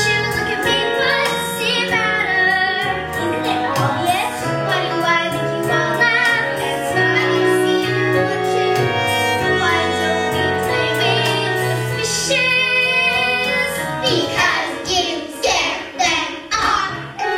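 Young voices singing a musical-theatre number over a recorded backing track with held bass notes.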